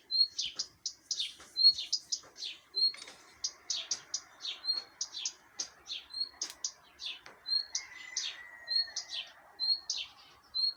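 Several small birds chirping and twittering in quick short notes. One short rising note repeats about once a second among the others.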